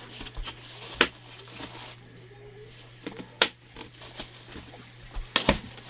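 Hard plastic parts of a baby-bottle drying rack clicking and knocking as they are handled, with three sharp clicks about one, three and a half and five and a half seconds in, over a steady low hum.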